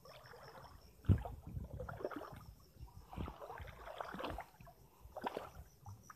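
Feet wading through a shallow stream, the water sloshing and splashing irregularly with each step, the loudest splash about a second in.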